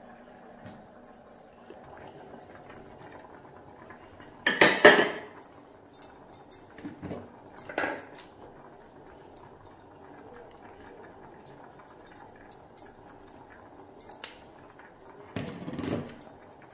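Metal kitchenware clattering and clinking as pots, plates and containers are handled: one loud clatter about five seconds in, a few lighter knocks around eight seconds, and another clatter near the end.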